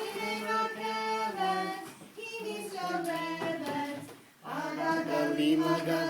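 A small group singing together, children's voices among them, in held notes with short breaks between phrases.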